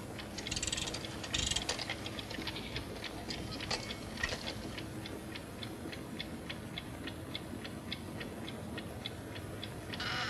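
Clock ticking steadily, about three ticks a second. Short bursts of hiss come twice near the start and once near the end.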